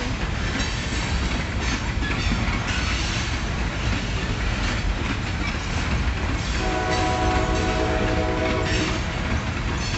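Freight train cars rolling past with a steady rumble and wheel clatter. About two-thirds of the way through, a train horn sounds one steady chord for a little over two seconds.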